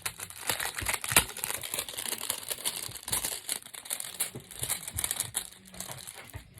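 Crinkly packaging being handled and opened by hand, a dense rustling crackle with a sharper, louder crackle about a second in: a packet of bookmarks being unwrapped.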